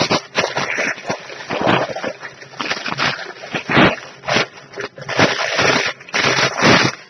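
Clear plastic packaging bag crinkling and rustling as it is handled and pulled open, in irregular crackles of varying loudness.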